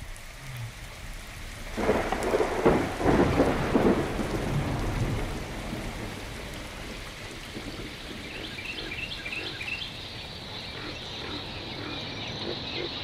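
A thunderclap breaks about two seconds in and rumbles for a few seconds, then gives way to a steady hiss of rain. High chirping calls join the rain from about eight seconds in.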